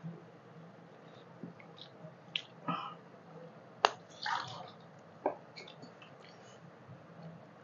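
Close-up wet eating sounds of rice and curry eaten by hand: scattered lip smacks and soft squishes, with one sharp click about halfway through.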